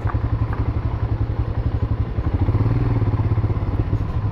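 Royal Enfield Himalayan's single-cylinder engine running as the motorcycle rides over a rough gravel road, its note picking up a little about halfway through.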